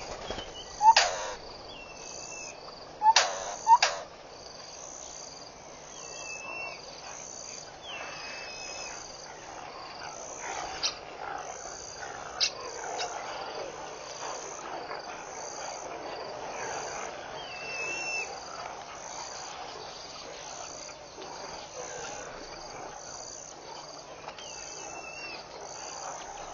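Outdoor night chorus of insects chirping high in an even, repeating rhythm. A few loud, short animal calls come about one second and three to four seconds in, with faint scattered chirps later.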